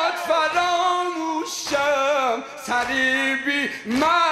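A man's voice singing a Shia mourning lament (latmiya) in Persian, drawing out long held notes that bend and waver between the lines of the verse.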